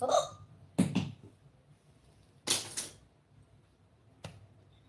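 A woman hiccuping four times, each a short sharp catch, the last one fainter. It is a persistent bout of hiccups that drinking water has not stopped.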